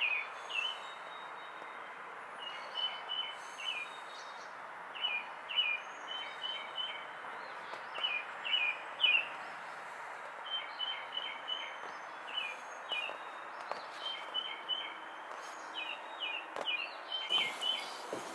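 A small songbird chirping over and over in quick runs of two to four short notes, over a steady background hiss. A couple of footsteps on a wooden deck come in near the end.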